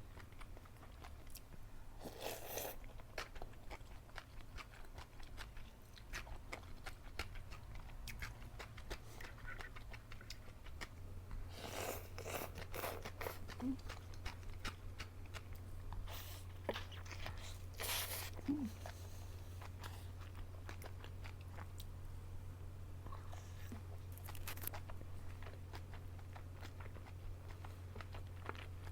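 Close-up mukbang eating sounds: a person biting and chewing, with crunchy bites and wet mouth clicks, and several louder stretches of bites or slurps. A steady low hum runs underneath and gets stronger about eleven seconds in.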